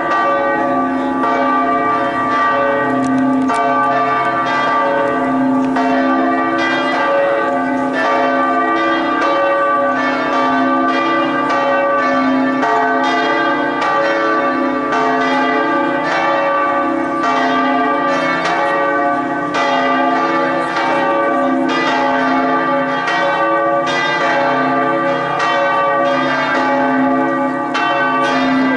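Several large church bells of Prato Cathedral ringing together, their strikes overlapping in a continuous, steady peal.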